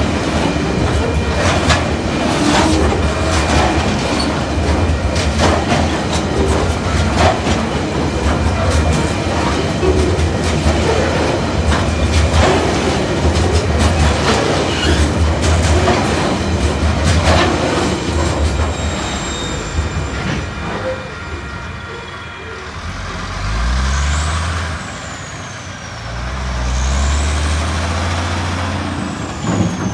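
Tasrail coal hopper wagons rolling past, wheels rumbling and clattering over the rail joints with a faint squeal. About twenty seconds in the wagons clear, and a heavy truck hauling a low-loader trailer pulls across the crossing, its engine rising in pitch twice as it works through the gears.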